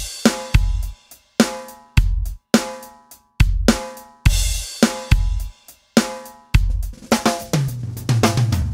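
Background music: a drum-kit beat of kick, snare, hi-hat and cymbal hits, with ringing pitched notes dying away between the strikes.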